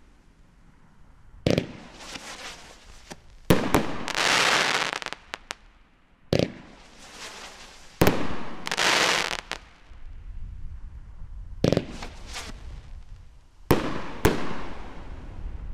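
A 'Dirty Little Secret' 500-gram consumer fireworks cake firing shots into the sky. Sharp bangs go off every one to three seconds, and several are followed by about a second of hissing as the shells burst and their tails spin out.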